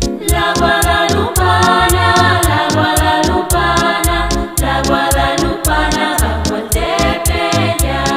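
Background music: a song with sung vocals over a steady beat and heavy bass.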